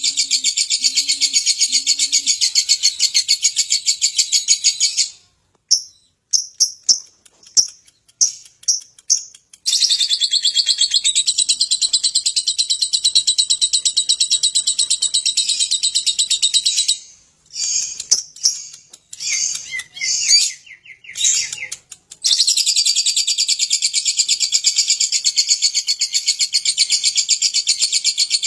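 Lovebird giving its 'ngekek': long bouts of rapid, unbroken, high-pitched chattering, three in all, broken up by short separate chirps. A low cooing repeats faintly in the first two seconds.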